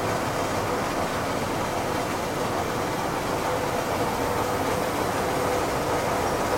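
Textile mill machinery running: a steady, even mechanical drone with a faint held tone, from fabric-processing roller machines.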